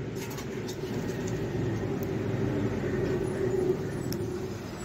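Steady background rumble of road traffic, with a few faint clicks.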